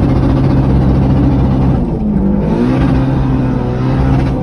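Honda K24 four-cylinder engine in a Mini Cooper S running under load, a loud steady engine note whose pitch shifts briefly about two seconds in, then holds again.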